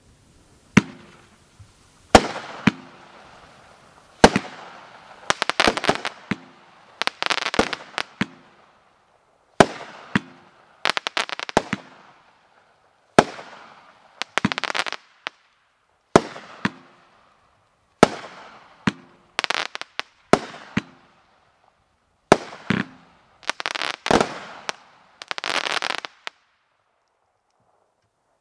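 Red Rhino 'Private Property' 16-shot firework cake firing in sequence. Each shot is a sharp bang followed by a spread of crackling, coming about every one to two seconds. The shots stop shortly before the end.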